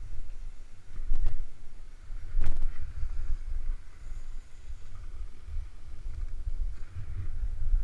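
Wind buffeting the microphone of a skier's camera as they ski down a groomed slope: a gusty low rumble with a faint hiss of skis sliding on packed snow, swelling louder briefly about a second in and again about two and a half seconds in.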